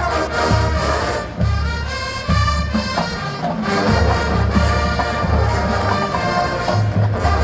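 Marching band playing, brass instruments carrying the tune over heavy low bass notes and drum beats.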